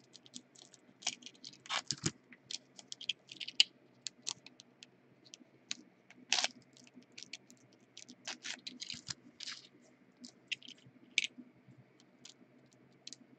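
A foil trading-card pack and its cards being handled: an irregular scatter of short, faint crinkles, scratches and clicks.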